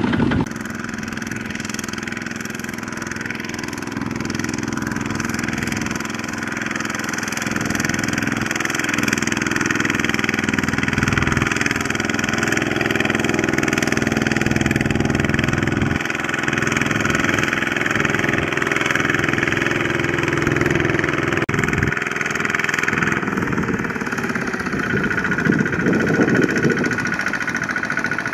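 Kubota ZT155 single-cylinder diesel engine on a two-wheel walking tractor running steadily under load as it pulls a loaded trailer through mud.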